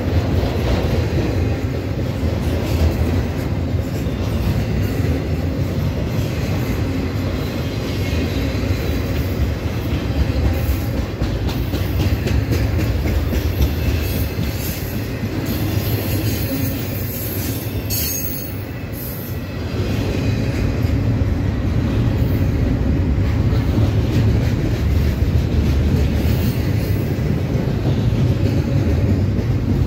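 Freight train of double-stack container well cars rolling past close by: a steady low rumble of steel wheels on rail with a rapid run of clicks, easing briefly about two-thirds of the way through.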